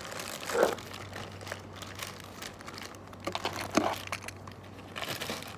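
A bag crinkling and rustling as toys are handled and packed into it, with two louder rustles, about half a second in and just before four seconds.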